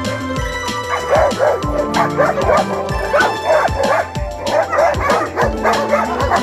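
German shepherd barking in a rapid run of short, high yelping barks, about three a second, starting about a second in. Background music with a steady beat plays throughout.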